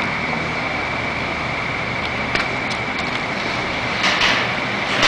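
An automated car park's machinery runs with a low hum under a steady high-pitched warning tone, as the parked car is moved in its bay. A few sharp clicks come midway, and two brief rushing noises near the end.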